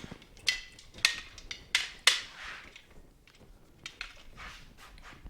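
Metal clanking and knocking from hand work on a motorcycle being taken apart. Four sharp strikes come in the first two seconds or so, one ringing briefly, then lighter taps.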